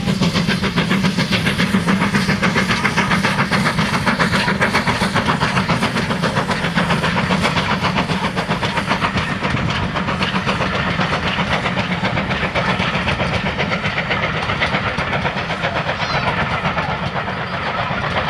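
Steam locomotive hauling a passenger train past under power, its exhaust beating in a rapid, even rhythm as the coaches roll by. The sound eases slightly near the end as the train draws away.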